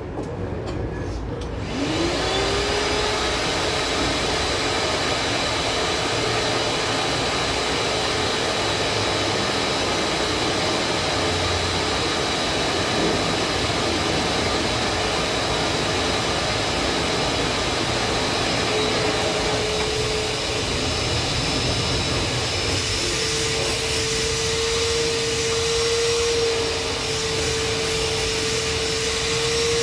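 Washing machine motor starting up about two seconds in, its whine rising in pitch and then running steadily under a loud rushing air noise.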